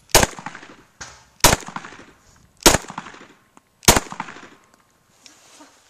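Four 9mm shots from a Glock 17 pistol fired at an even, unhurried pace about 1.2 seconds apart, each sharp crack followed by a short echo dying away.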